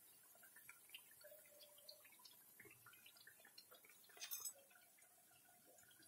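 Very faint, scattered ticking and crackling of hot frying oil as fried vadas are lifted out with a perforated steel skimmer, with a brief clatter about four seconds in.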